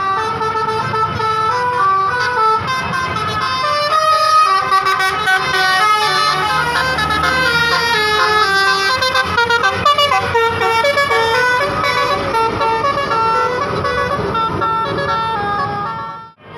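Bus 'telolet' multi-tone musical horn playing a quick tune of stepping notes over a low vehicle rumble. It cuts off abruptly near the end.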